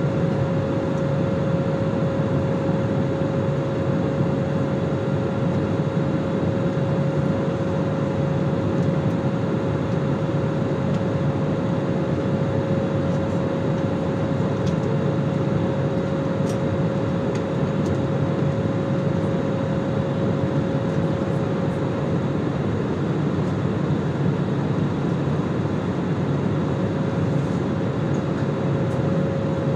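Steady drone of an airliner heard inside the passenger cabin: engine and air-system noise, with a steady whine held over it that fades out for a few seconds late on.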